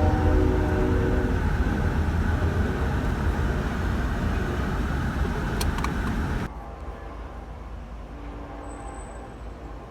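Train horn chord ending about a second in, followed by the steady low rumble of the train running past. The sound cuts off suddenly after about six and a half seconds to a much quieter background.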